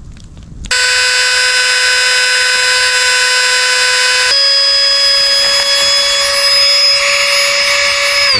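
Small rechargeable electric air pump running with a steady high whine, its pitch stepping up slightly partway through, then switched off and winding down near the end.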